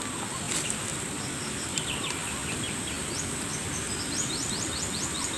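Tropical forest ambience: a steady high insect drone, with a bird giving a quick series of short chirps about two seconds in and again through the middle and latter part.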